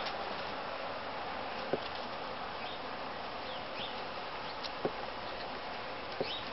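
Steady outdoor background hiss with a buzzy quality, broken by a few soft clicks.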